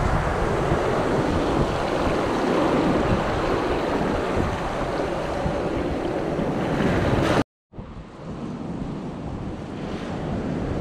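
Sea surf washing up the beach and foaming over the sand at the waterline, a loud, steady rush. It cuts off abruptly about seven and a half seconds in, and fainter, more distant surf follows.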